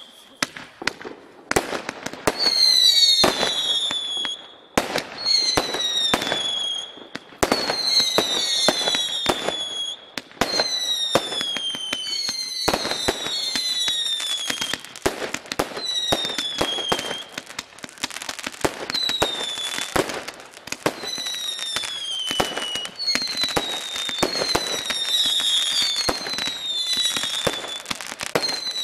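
Fireworks firing in quick succession: a string of whistling shots, each a falling whistle about a second long, one every second or two, over sharp bangs and cracks.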